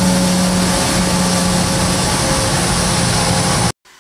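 Business jet's rear-mounted turbofan engines running as it taxis: a steady roar with a held hum beneath it, cutting off suddenly near the end.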